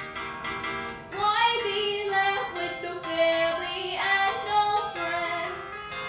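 A female voice singing long held notes in a slow ballad, with instrumental accompaniment.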